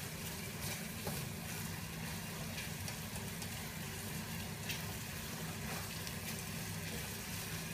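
Chopped onion and mushrooms sizzling in butter and olive oil in a steel sauté pan, with the clicks of a spatula stirring them, over a steady low hum.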